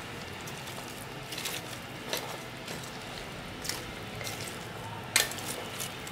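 Kitchen food-preparation handling sounds: a few short, light clicks and knocks, the sharpest about five seconds in, over a low steady background.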